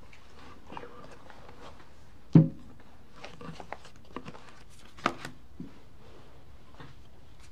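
Quiet room tone broken by a single heavy thump about two and a half seconds in, a lighter knock about five seconds in, and a few small clicks and rustles.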